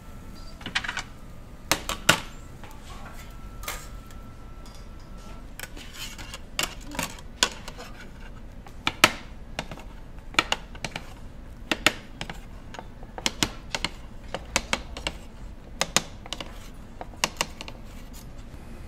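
A cleaver slicing through a rolled egg omelet, its blade knocking sharply on the serving plate beneath with each cut, irregularly every half second to a second or so.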